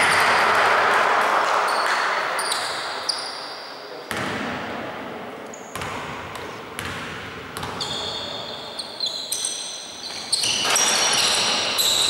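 Basketball game sounds in a gym hall: the ball bouncing on the wooden court, sneakers squeaking repeatedly on the floor, and players' voices echoing. The squeaks grow thicker near the end, as play starts moving again.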